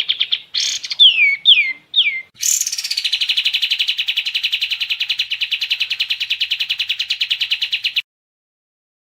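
Kapas tembak songbird singing: a fast trill, three short falling whistles about a second in, then a long rapid trill that cuts off suddenly near the end.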